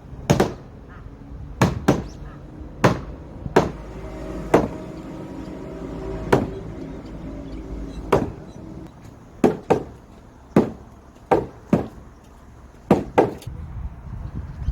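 Hammer blows on timber, about fifteen sharp strikes at an irregular pace, some in quick pairs, as a hanok's wooden frame is knocked together.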